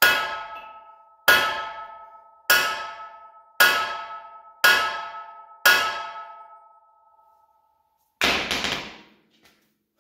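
Hand hammer striking the steel of an old John Deere 202 plow at the wheel, six hard ringing clangs about a second apart, each one ringing on and dying away. He is trying to drive out seized bolts to free the wheel, and they are not coming out. Near the end comes a single shorter, duller clatter.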